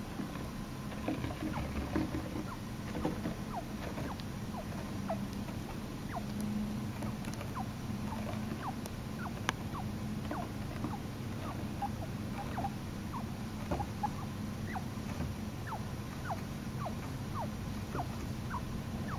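Baby chinchilla peeping and squeaking softly while dozing off: a string of short high peeps, one or two a second.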